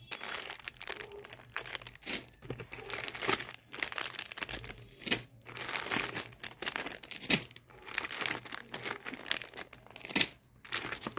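Clear plastic packets and paper wrappers crinkling and rustling as they are handled and opened by hand, in irregular crackles.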